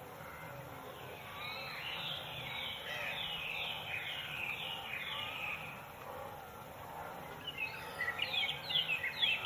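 Birds calling: a series of short descending chirps, about two a second, then a quicker, louder run of chirps near the end, over a steady outdoor background hiss.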